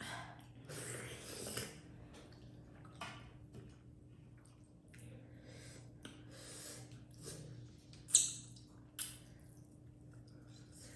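Close-up eating sounds of dhido and chicken curry: soft chewing, mouth and lip sounds and small clicks, with a sharper sound about eight seconds in and another a second later. A faint steady hum runs underneath.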